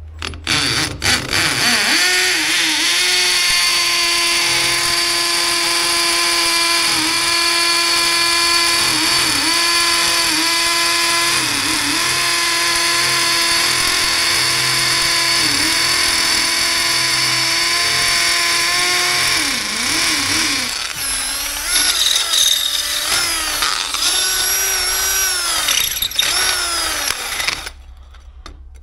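Angle grinder with a concrete cutting disc cutting into a concrete-block wall: a loud, steady motor whine that repeatedly dips in pitch as the disc bites into the block, becomes unsteady after about 20 seconds, and stops shortly before the end.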